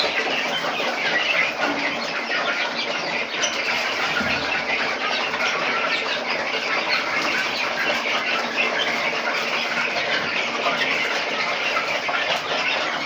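A flock of young Noiler chickens peeping and cheeping without pause, many short high calls overlapping.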